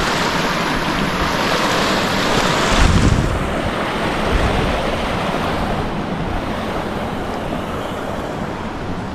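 Steady rushing of a flowing creek, with a gust of wind buffeting the microphone about three seconds in.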